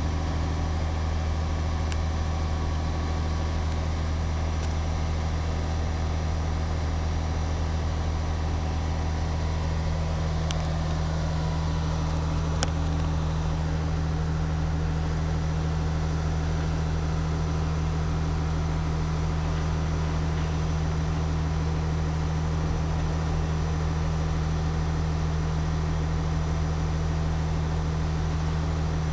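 Diesel engine of a large mobile crane running steadily under load with a low, even hum. Its hum grows a little stronger about ten seconds in.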